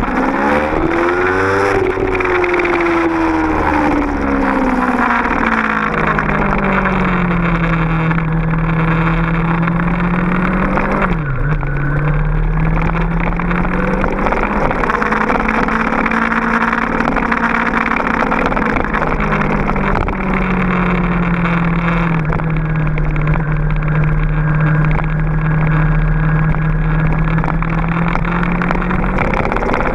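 Honda VFR800FI's V4 engine under way, its note climbing at the start, then easing off to a steady pitch, with a sudden dip and recovery about eleven seconds in and another climb near the end. Wind rushes over the rack-mounted camera's microphone.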